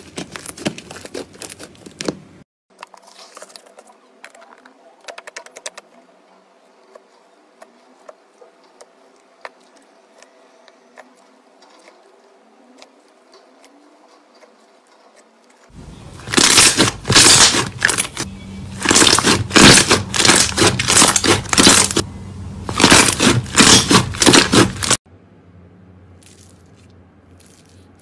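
Hands kneading, stretching and pressing slime, making runs of sticky clicks and pops. It is soft through the first half, loudest for about nine seconds past the middle, and softer again near the end as fingers press into floam, which is foam beads in clear slime.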